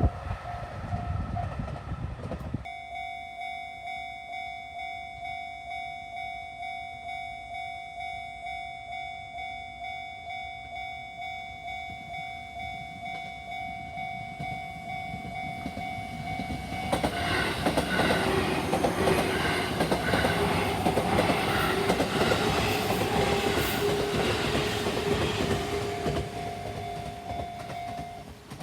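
Japanese level-crossing warning bell ringing steadily, a pulsed electronic clang about twice a second. After about fifteen seconds a train passes with loud rumbling and wheel clatter for roughly nine seconds. The bell stops just before the end.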